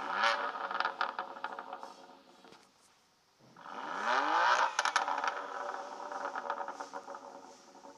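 BMW M2 Competition's twin-turbo inline-six revved twice, about three and a half seconds apart. Each time the pitch climbs quickly, then a burst of sharp exhaust crackles follows as the revs fall back.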